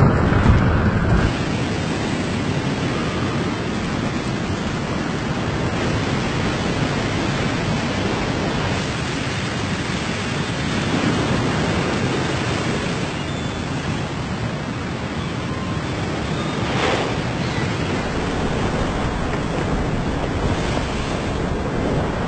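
Steady rushing noise of a storm: wind and water, with no distinct events.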